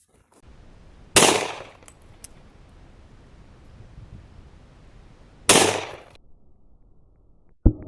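Two shots from a Glock 35 .40 S&W pistol, about four seconds apart, each cracking sharply and ringing out for about half a second. A short, quieter click comes near the end.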